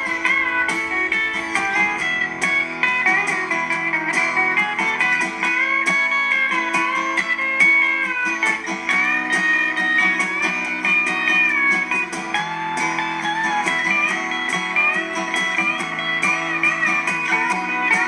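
Background music: a guitar-led instrumental passage with gliding, bending notes over a steady accompaniment, with no singing.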